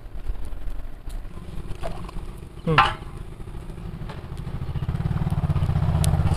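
A small engine running with a low, even throb that grows louder over the last couple of seconds. About three seconds in, a short high cry falls steeply in pitch.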